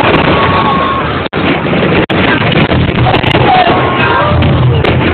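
Dense, continuous fireworks barrage: a loud, unbroken mass of bangs and crackle, with a few short whistling glides rising and falling through it.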